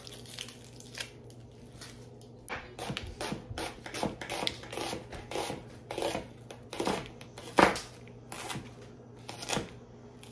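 Kitchen knife dicing an onion on a cutting board: a run of irregular chopping strikes, the loudest about three-quarters through.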